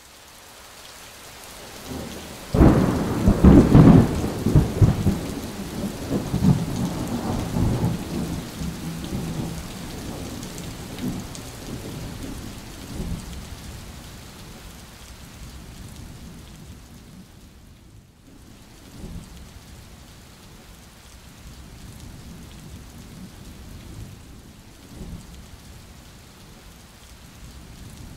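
Thunder and steady rain. A thunderclap rumbles in about three seconds in and dies away over several seconds, and the rain hiss carries on under it, dropping out briefly about two-thirds of the way through.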